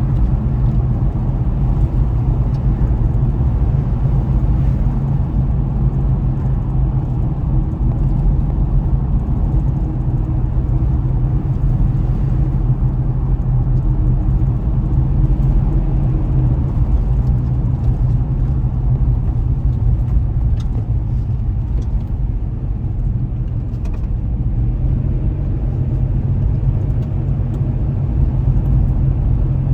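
Car driving at a steady pace: a constant low rumble of engine and tyre noise on the road.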